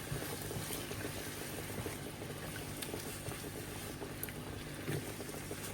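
Onion paste and tomato cooking in oil and ghee in a pan: a steady sizzling and bubbling with a few faint pops.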